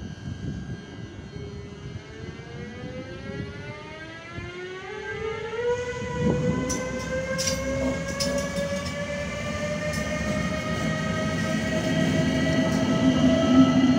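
Siemens Vectron electric locomotive pulling away with a passenger train, its traction motors whining in several tones that rise steadily in pitch as it gathers speed. It grows louder as it passes, with a few sharp clicks about halfway through and the coaches rumbling on the rails near the end.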